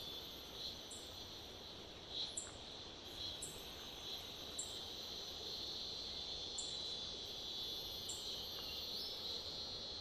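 Forest insects shrilling steadily at a high pitch, with a few faint soft taps.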